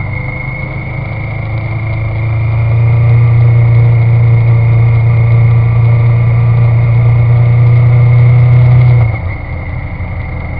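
A 650 cc engine running; about two seconds in it grows louder and holds, then drops back suddenly near the end. A steady high-pitched whine runs over it throughout. It is posted as an abnormal noise from the engine.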